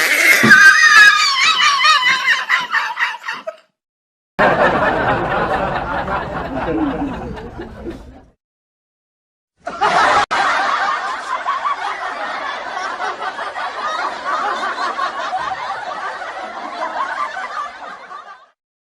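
Three laughing sound effects in turn, separated by short silences: a high-pitched laugh, then a lower one, then a longer stretch of laughter that fades out near the end.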